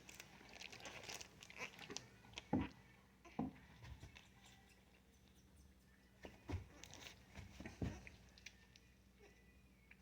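Newborn goat kids suckling from a bottle nipple: faint, irregular sucking and smacking with a few soft knocks.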